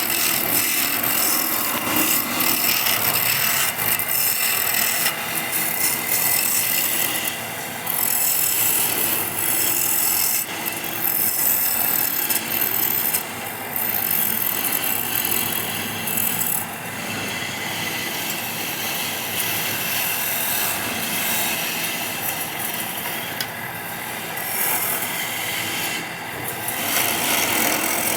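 Wood being worked with a cutting or abrading tool: a steady scraping, rubbing noise, with brief dips every few seconds.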